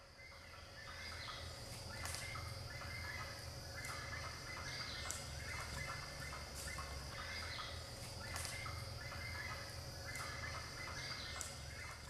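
Tropical forest ambience fading in over the first two seconds: bird calls repeating in clusters about once a second over a steady high insect whine.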